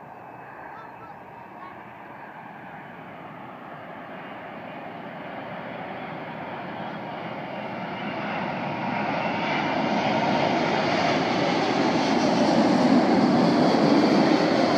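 Airbus A380 on final approach with its landing gear down, the noise of its four jet engines growing steadily louder as it comes in low and passes close, loudest near the end.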